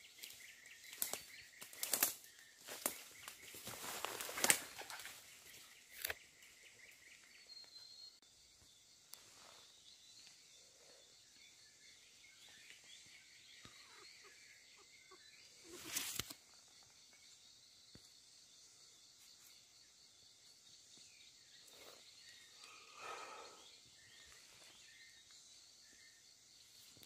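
Outdoor forest sound: a cluster of sharp rustles and knocks in the first six seconds, one more loud one about 16 seconds in and a softer rustle near 23 seconds. Behind them runs a steady high-pitched drone of forest insects.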